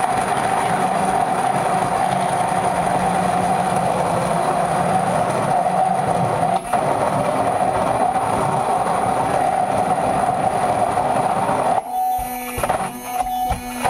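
Electric blender running steadily as it grinds basil and almonds into pesto, with a brief dip about seven seconds in. It stops about twelve seconds in and music with pitched tones follows.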